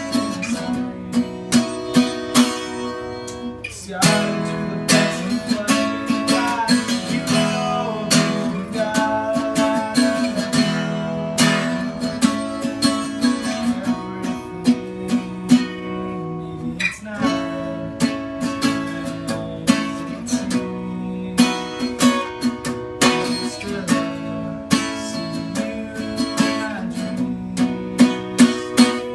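Acoustic guitar strummed in a steady rhythm, playing a repeating chord progression.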